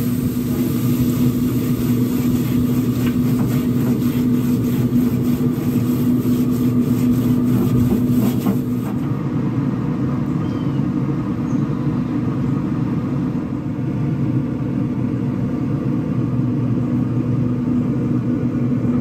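A water-filled steam grill brush is scrubbed back and forth over hot porcelain-coated crosshatch grill grates, rasping and hissing with each stroke, and stops about nine seconds in. Under it runs a steady low hum from the pellet grill's fan.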